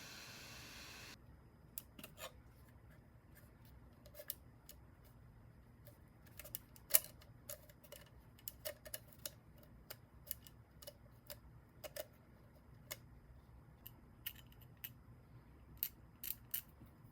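Irregular small snips and clicks, a couple of dozen, the loudest about seven seconds in, from hand work on small parts. A steady hiss stops about a second in.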